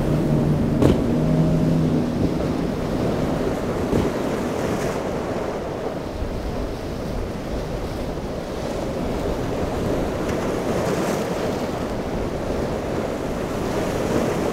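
Surf and breaking waves with wind buffeting the microphone. For about the first two seconds, a passing powerboat's outboard engines drone steadily underneath.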